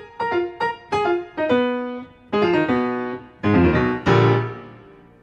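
Piano music: a short run of single notes and held chords, ending on a chord that rings out and fades away.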